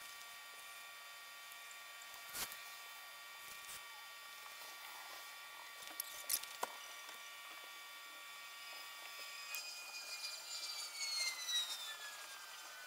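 A faint, steady motor whine from the kiln's dehumidifier. About three-quarters of the way through the whine stops and its pitch slides down as the motor spins down: the humidity controller has cut the dehumidifier off as the humidity falls past its 65% setting. A few faint clicks come before that.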